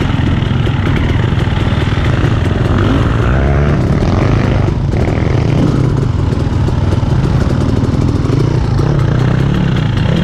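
Dirt bike engine running close to the microphone, its revs rising and falling repeatedly as it is ridden along a rough trail.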